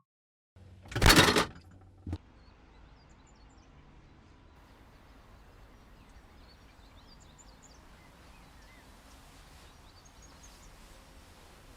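A loud half-second burst of noise about a second in and a sharp click a second later. Then faint outdoor background with a few distant bird chirps.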